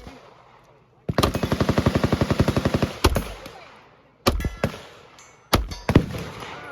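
Fully automatic gunfire: one burst of about two seconds at a fast, even rate of roughly a dozen rounds a second, followed by four or five separate single shots, two of them close together near the end.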